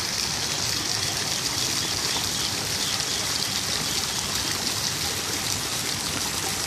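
Small fountain jets splashing steadily into a shallow pool of water, a continuous hiss of falling water.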